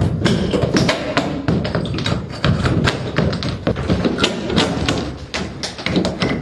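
A rapid, irregular clatter of many small taps and knocks, several every second.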